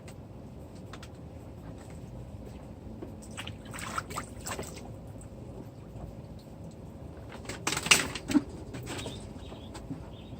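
Water splashing in short bursts as capuchin monkeys play in shallow water, a few splashes about four seconds in and a louder flurry near eight seconds.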